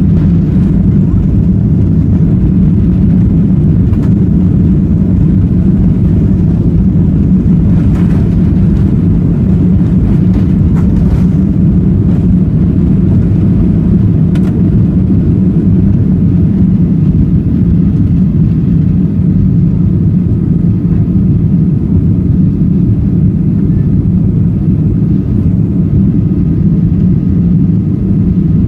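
Steady, loud rumble of a Boeing 737-800's jet engines and airflow heard inside the passenger cabin, with a few faint clicks about eight to eleven seconds in.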